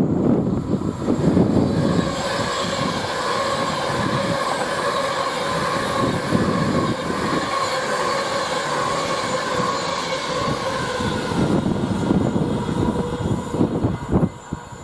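A train passing at speed: a steady rush of wheels on rail with a high, even ringing tone, over wind buffeting the microphone. It eases off near the end.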